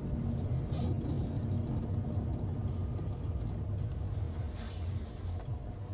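Steady low rumble of a car driving on a snowy road, heard from inside the cabin, with a brief rise in hiss near the end.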